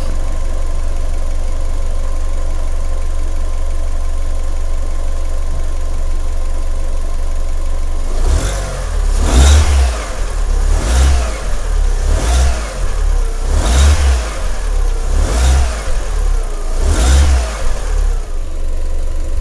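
Fiat 500 engine idling steadily, then blipped about six times in quick succession from about eight seconds in, each rev rising and falling in pitch, during a combustion-gas leak test on the coolant.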